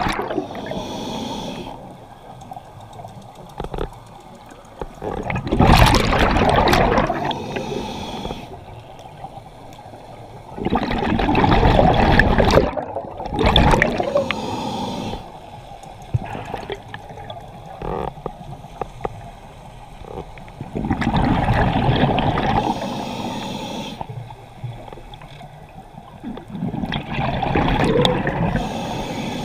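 Scuba diver breathing through a regulator underwater: a gurgling burst of exhaled bubbles every five to six seconds, with quieter water noise between breaths.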